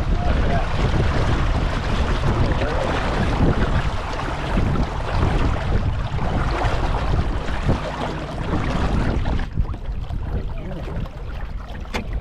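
Wind rumbling on the microphone over water splashing and sloshing against a small sailboat's hull. The hissing part thins out abruptly about nine and a half seconds in, leaving mostly the low rumble.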